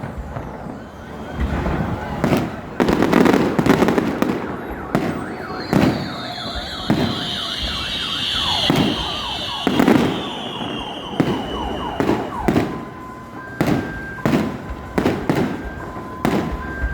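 Fireworks salute: a rapid series of booming bursts with crackling, and a long high whistle that falls slowly in the middle. Near the end a car alarm starts sounding in two alternating steady tones under the bangs.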